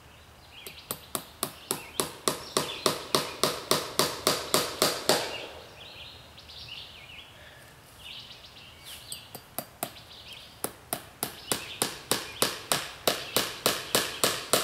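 Hammer driving nails into a tree trunk to fix chicken wire fencing, in quick, even strikes about four a second. There are two runs, each several seconds long, with a pause of about five seconds between them.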